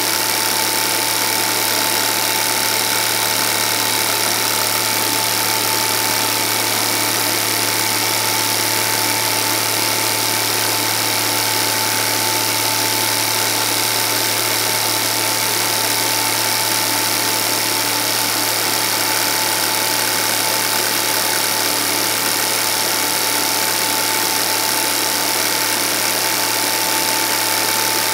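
Film projector running: a steady motor hum with a constant thin whine and an even hiss, unchanging throughout.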